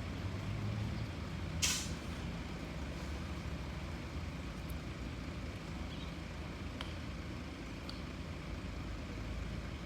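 A sika deer sneezing once, a short sharp hissy burst about two seconds in, over a steady low hum of traffic.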